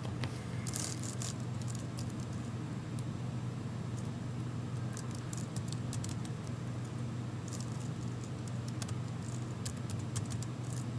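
Computer keyboard being typed on: short runs of light key clicks in a few separate bursts, over a steady low hum.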